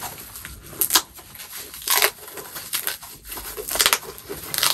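Packaging wrap being pulled off a new handbag by hand, crinkling and tearing in short bursts, about three of them a second or so apart.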